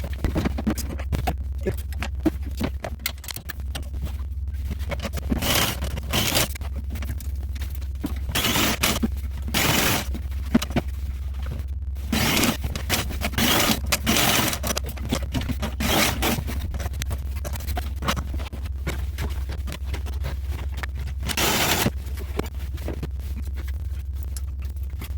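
Irregular scraping, a short scrape every second or few, over a steady low hum.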